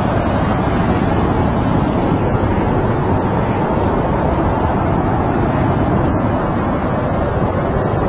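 Snowstorm wind blowing steadily: a low, even rushing noise without gusts or breaks.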